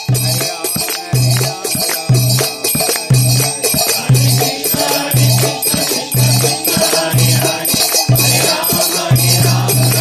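Devotional kirtan music: singing voices over jangling hand cymbals and rattles, with a low drum note sounding about once a second.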